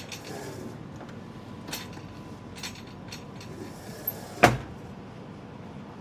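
Passenger train running with a steady rumble, with a few light knocks and one sharp, loud bang about four and a half seconds in.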